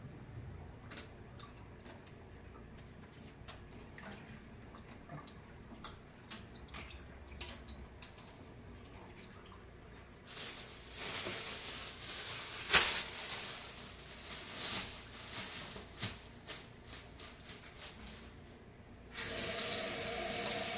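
Water in a stainless steel kitchen sink: small drips and clicks at first, then louder splashing with a few sharp knocks from about halfway, and near the end the faucet is turned on and runs steadily onto a hand.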